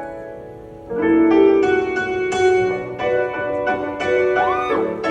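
Piano playing slow chords: a held chord fades out, then new chords are struck about a second in and roughly once a second after, the opening of a slow, dramatic ballad.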